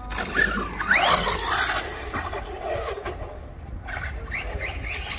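Maverick Quantum MT Flux RC monster truck's brushless motor whining up in pitch as the truck accelerates, once about a second in and again near the end.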